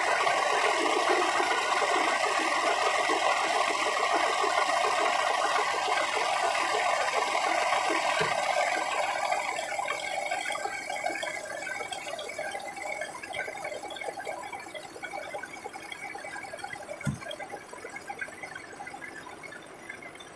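Tow truck's engine and hydraulic winch working under load, a steady mechanical rattling noise that eases off about halfway through. Two dull thumps come later, one about eight seconds in and one near the end.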